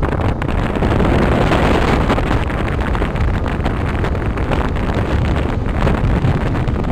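Strong wind buffeting the camera's microphone: a loud, deep, gusting rush of wind noise.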